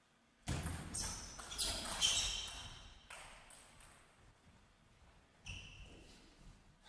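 Table tennis ball clicks and bounces: a quick run of sharp, ringing clicks starts about half a second in and dies away over the next two seconds or so, with a shorter burst near the end.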